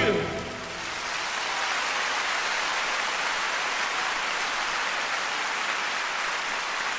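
Audience applauding steadily after the last sung note and the orchestra die away in the first half second.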